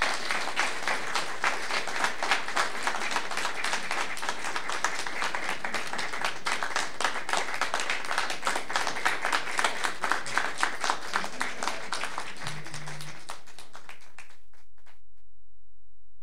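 Audience applauding, with many hands clapping at once; the applause cuts off abruptly about fourteen seconds in.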